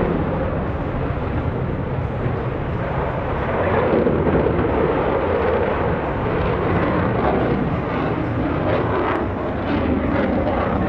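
Loud, steady jet noise from a Blue Angels F/A-18 Hornet's twin turbofan engines as it climbs and passes overhead, swelling slightly about four seconds in.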